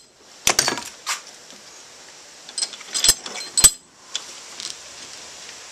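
Sharp metallic clinks and taps in a few irregular clusters: a hammer striking a short piece of flat steel as it is bent around a form.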